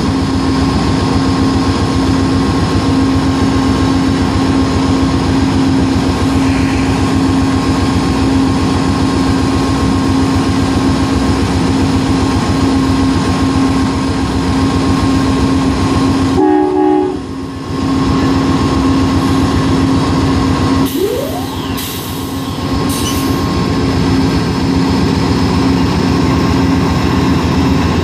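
A GE P42DC diesel locomotive idling close by with a steady hum, while a freight train rolls past on the adjacent track with a continuous rumble.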